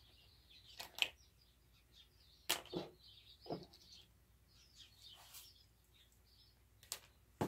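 Faint, scattered clicks and light scrapes of a small measuring spoon against a plastic tub as kosher salt is scooped, about half a dozen short sounds.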